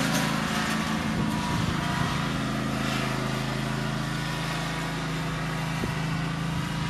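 Ride-on lawn tractor's engine running at a steady speed as it drives across grass.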